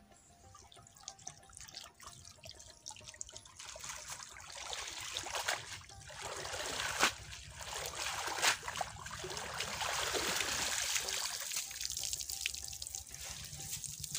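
Water splashing and trickling as a wet cast net is hauled up and swished in shallow river water, streaming off the mesh. It builds up a few seconds in, with a couple of sharper splashes midway.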